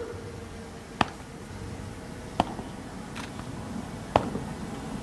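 Three sharp knocks, spread unevenly over a few seconds, over faint background noise and a thin steady tone.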